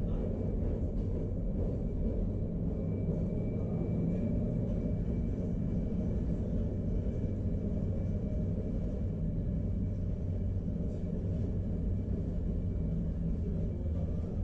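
Vintage 1942 electric tram car running along the track, heard from inside the car: a steady low rumble of wheels and running gear on the rails.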